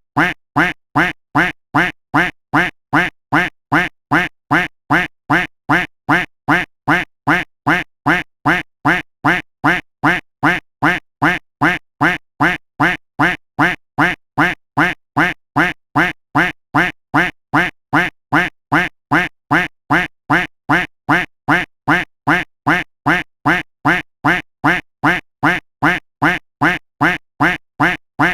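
A duck quack sound effect looped without pause. The same short, nasal quack repeats evenly at about two and a half quacks a second.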